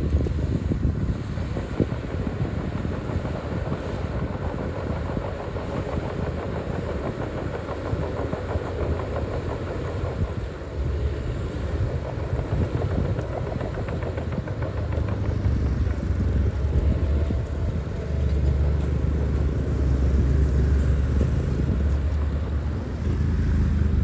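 Bulldozer's diesel engine running with a low rumble and a fast, steady clatter of its steel tracks; the engine gets louder about eighteen seconds in, as if put under more load.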